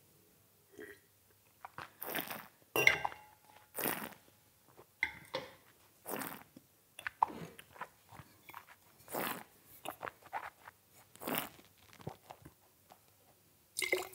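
A wine taster's mouth noises: a string of short slurps and swishes as red wine is drawn over the palate with air and worked around the mouth, then spat into a metal spittoon near the end.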